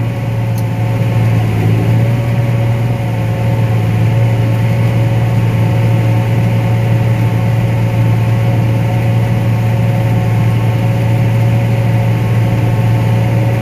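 Combine harvester running while cutting corn, heard as a steady low drone with a constant higher whine over it.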